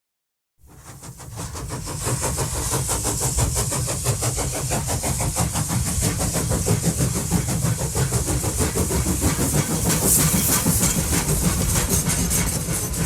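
A heavy engine, likely a locomotive's, fading in about half a second in and then running steadily with a fast, even pulsing.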